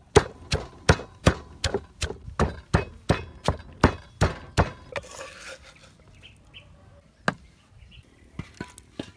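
Wooden pestle pounding shallots, chilies and garlic in a wooden mortar, nearly three even strokes a second, stopping about halfway through. A single knock follows later.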